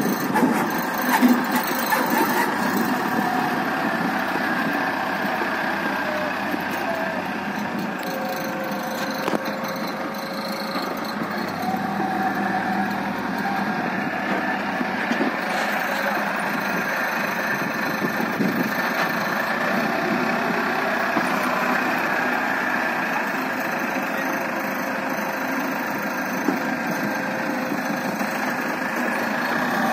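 Diesel engine of a compact Long King wheel loader running steadily while the machine works, its note shifting slightly up and down. A few knocks in the first couple of seconds as the bucket tips soil into a dump truck's bed.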